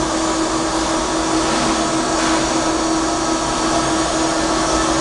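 CNC vertical milling machine running with its spindle turning: a steady whirring hum with one constant pitched tone, while a slip of paper is used to touch off the tool.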